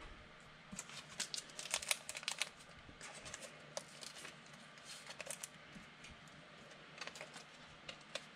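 Faint, irregular light clicks and crinkles of trading cards and their plastic packaging being handled and sorted at close range.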